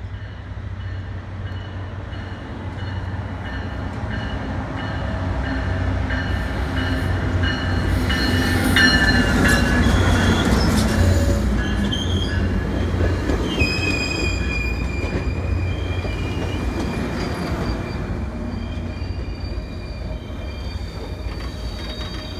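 Tri-Rail commuter train of bilevel coaches passing close by. The rumble grows to its loudest about ten seconds in. From about halfway through, steady high-pitched wheel squeal rides over the rolling noise as the train slows to stop at the station.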